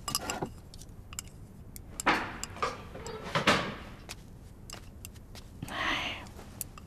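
Chopsticks clicking and clinking against a bowl and plates as a young man eats hungrily, with a few short scraping, rustling noises in between.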